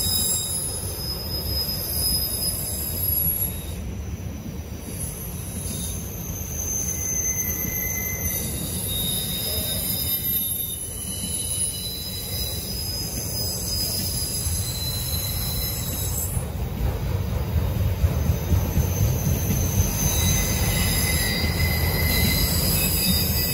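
CSX freight train of autorack cars rolling past, with a steady low rumble of wheels on rail and high-pitched wheel squeals that come and go.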